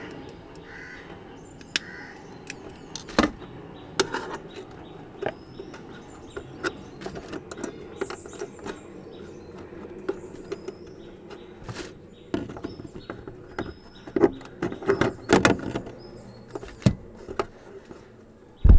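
Scattered metallic clicks and taps from hands and pliers working the boot-lid latch mechanism of a Maruti Alto, with a quick cluster of them a couple of seconds before the end, over a low steady hum.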